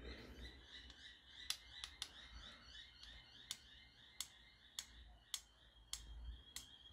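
Faint, sharp clicks of a motorcycle's turn-signal flasher relay with the ignition on, settling to about one click every 0.6 seconds. A faint, steady, high chirring runs behind them.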